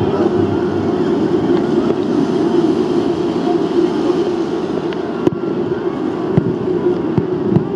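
Steady loud din of a large crowd in the shallow surf, with three sharp bangs in the last few seconds.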